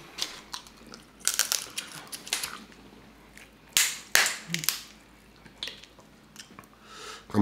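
Crab leg shells being cracked and snapped apart by hand: several short, crisp crunching bursts, the loudest a pair about four seconds in.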